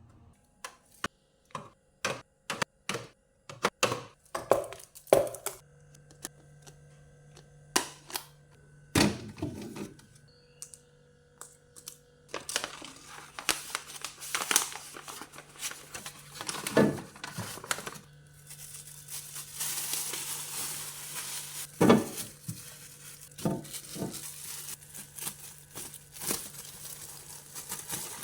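Plastic food packaging crinkling and rustling as a refrigerator is restocked, with many sharp clicks and knocks of containers and packs being handled and set down. A steady low hum runs underneath from about six seconds in.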